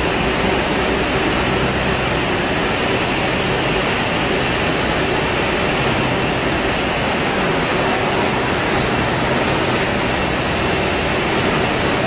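Steady loud factory noise of a running ice pop production line: an even hiss with a faint low hum underneath, without break or change.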